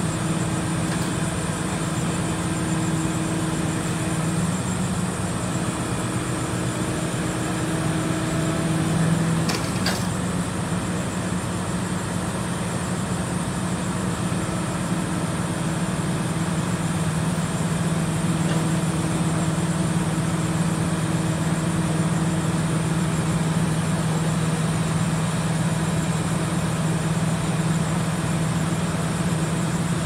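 Crane engine running steadily while hoisting a chiller, with a single short knock about ten seconds in.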